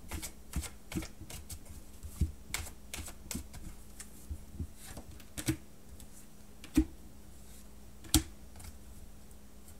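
Deck of oracle cards being shuffled by hand: irregular light clicks and slaps of the cards, with two louder knocks in the second half.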